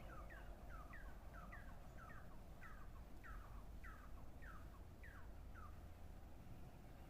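A bird calling a steady series of short downslurred notes, about two a second, that stops near the end.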